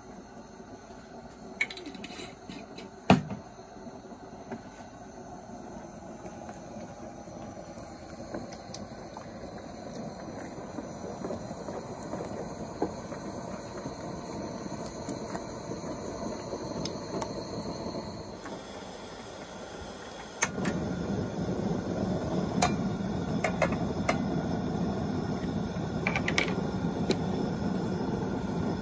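Propane camp stove burners hissing steadily under a steel pot of tomato sauce being stirred with a wooden spoon, with a sharp knock about three seconds in and scattered light clicks of utensils on the pot. The hiss becomes louder about two-thirds of the way through.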